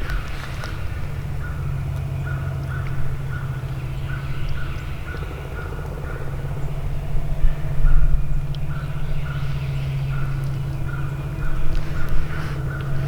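Wild turkeys calling, short notes repeated in runs, over a steady low drone.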